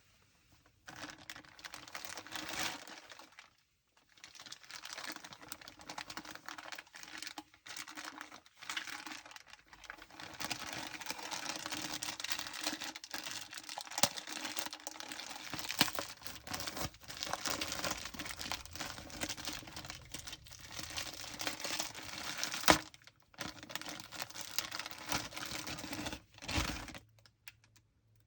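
Packaging being unwrapped and handled close to the microphone: crinkling and rustling with many small clicks, broken by a few short pauses. A single sharp crack comes about three-quarters of the way through.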